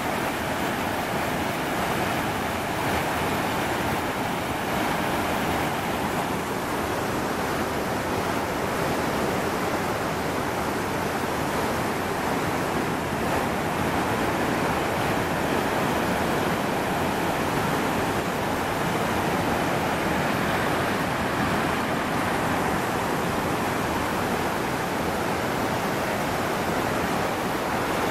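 Small cascades of the Pliva River rushing over limestone rocks: a steady, unbroken sound of white water.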